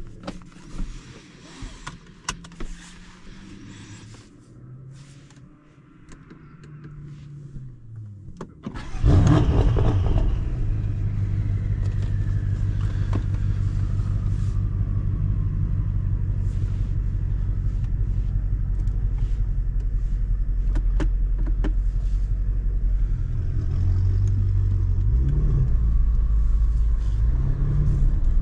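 BMW M5 F90's 4.4-litre twin-turbo V8, tuned to stage 2, starts about nine seconds in with a loud flare that drops back to a steady idle; its pitch lifts briefly a couple of times near the end. Before the start, a few clicks and knocks over a low hum.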